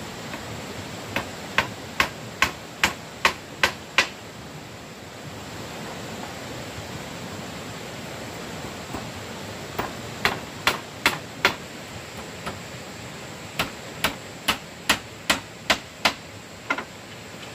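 Three runs of sharp hammer blows, about two to two and a half strikes a second, over a steady background hiss: nails being driven while building a wooden kitchen shelf.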